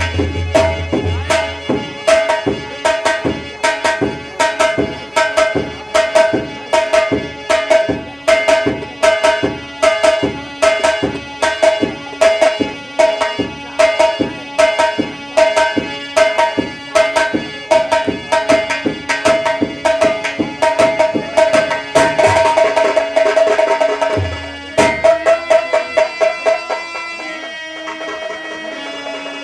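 Instrumental folk music: a drum played in a steady, even rhythm over a held note. Near the end the drumming softens and a short melody steps up and down.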